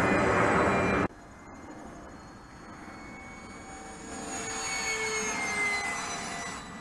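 A radio-controlled model plane's motor and propeller whining overhead, rising in loudness partway through and falling in pitch as it passes. A louder rushing noise in the first second cuts off abruptly.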